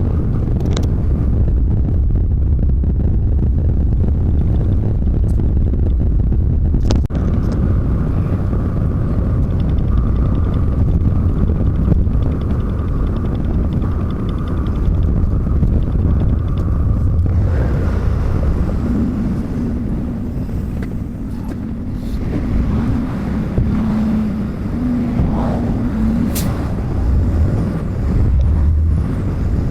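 Semi-truck driving on the highway: a steady low engine and road rumble, with a faint steady tone over it for about ten seconds partway through.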